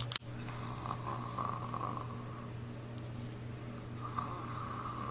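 A person's voice imitating snoring: two long snores, one about a second in and another about four seconds in, over a steady low hum. A sharp click sounds right at the start.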